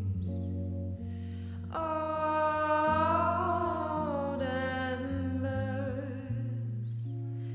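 Music from a song: a long, wavering sung note held for about three seconds over steady low sustained tones.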